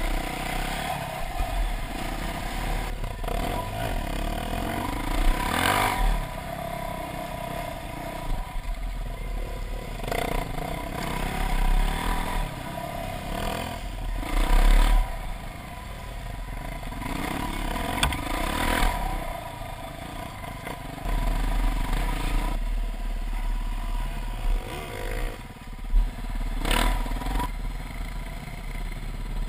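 Dirt bike engine running under changing throttle on a bush trail, its pitch rising and falling as the rider accelerates and backs off, with knocks and rattles as the bike hits bumps and a low wind rumble on the microphone.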